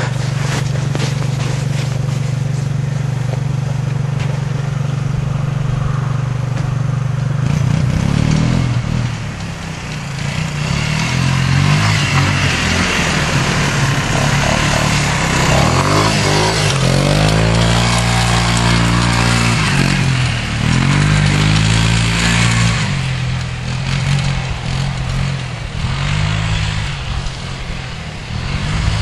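Yamaha Breeze ATV engine idling steadily, then from about eight seconds in revving up and falling back again and again as the quad is ridden.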